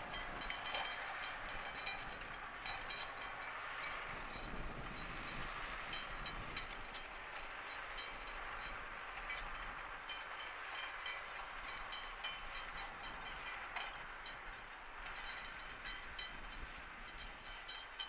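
Valtra T174 tractor's six-cylinder diesel engine running steadily under load while pulling a reversible plough through the soil, with scattered light ticks over the steady noise.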